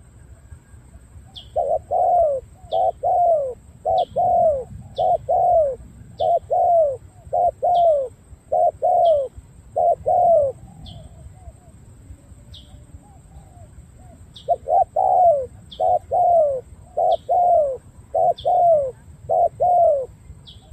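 Spotted dove giving its repeated 'gù' display coo: quick pairs of low falling coo notes about once a second, each with a thin high note beside it. The cooing stops for about three seconds midway, then resumes.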